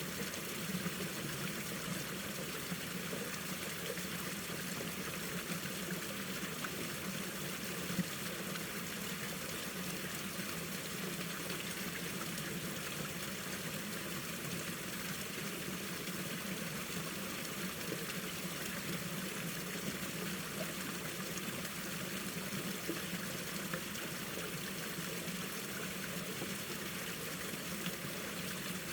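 Water in a mountain valley stream, running steadily.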